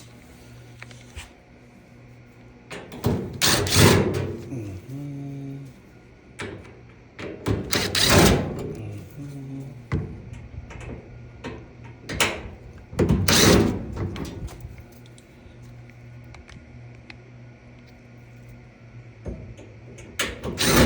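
Handling noise while working on a dryer's cabinet: several rough knocking and scraping bursts, each about a second long, over a low steady hum.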